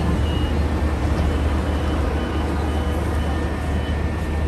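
Steady low rumble of a tram and street traffic, with a faint high tone coming and going.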